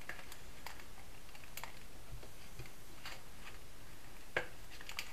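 Sparse, irregular small crackles and ticks of a paper gift box and cellophane bag being pressed and tucked by hand, with one louder tick about four seconds in.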